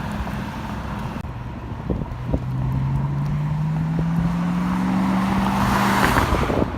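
Car driving on the road: an engine hum rising steadily in pitch as the car accelerates, over road noise, with a swell of rushing wind noise near the end.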